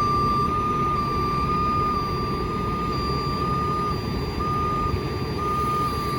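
A heavy truck's backup alarm beeping steadily at one high pitch, over the low running of a diesel truck engine.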